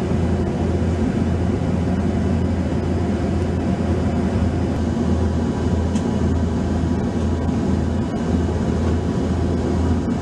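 Steady low drone of cabin noise inside a VC10 K3 tanker aircraft in flight.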